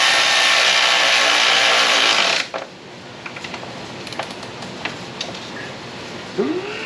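A handheld power drill runs steadily at a high whine for about two and a half seconds and then stops abruptly. Light clicks and ticks of hand tools on metal follow.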